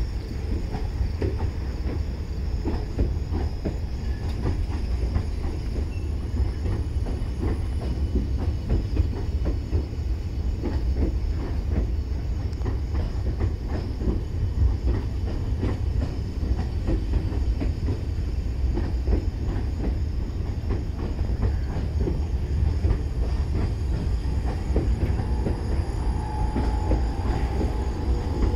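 R46 subway train pulling slowly into the platform: a steady low rumble with wheels clicking over the rail joints, and a thin squeal joining near the end.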